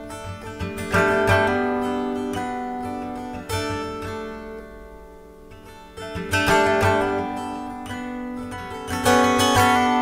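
Background music of a slow acoustic guitar: chords are strummed every few seconds and left to ring out and fade.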